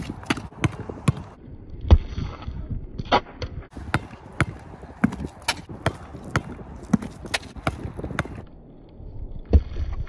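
A basketball dribbled hard and low on a concrete court: sharp bounces at an uneven pace, in short runs broken by pauses as the ball is passed under the leg, with a brief break near the end.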